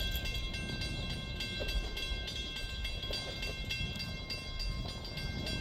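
Train running along the track: a steady low rumble with several thin, steady high-pitched tones over it.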